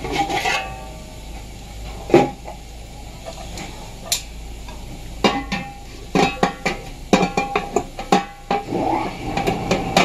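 Stainless-steel coffee urn parts clinking and knocking as the percolator stem tube and filter basket are fitted back into the urn, some knocks leaving a short metallic ring. The knocks come singly at first, then in a quick run from about five seconds in to past eight.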